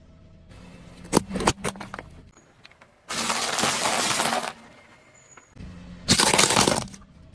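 Objects cracking and crunching as a car tyre crushes them: a few sharp cracks about a second in, then two longer bursts of crunching, one about three seconds in and one near the end.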